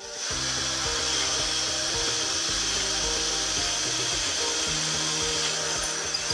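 Cordless drill running steadily as it bores bolt holes through a new wooden handle. Background music plays under it, its chords changing every couple of seconds.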